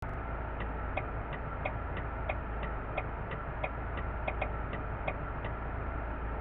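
Even, crisp ticking, about three ticks a second with every other tick slightly fuller, over a steady low hum; the ticking stops about five and a half seconds in.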